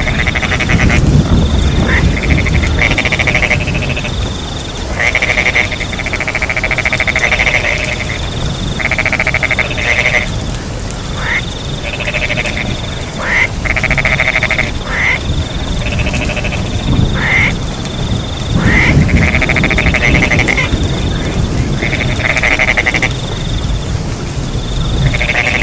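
A chorus of frogs giving repeated trilled croaks, over crickets chirping in short, high, steady stretches, with a low rumble underneath throughout.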